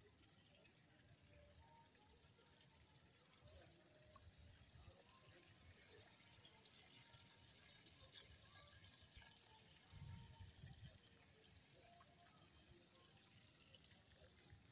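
Small cascading garden fountain: water trickling and splashing from tipped ceramic pots into a stone jar, faint at first, growing louder toward the middle and fading again near the end.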